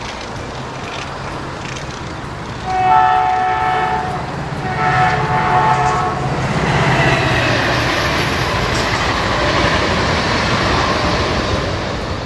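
Train horn sounding two blasts, each a chord of several steady tones, about three and five seconds in. Then the rising rush and rumble of the train passing close by.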